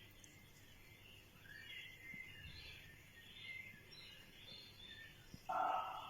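Quiet rural ambience of small birds chirping and twittering. About five and a half seconds in there is a louder short sound, about half a second long.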